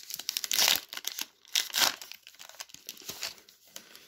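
Plastic wrapper of a baseball card pack being torn open and crinkled by hand, in irregular crackling bursts that die down near the end. The wrapper is hard to tear.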